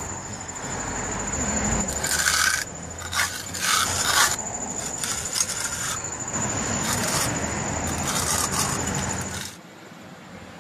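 Steel hand trowel scraping and working wet cement against concrete and the foot of an iron railing post, in short gritty strokes a few seconds in and again later, over a steady background hiss. The scraping stops near the end.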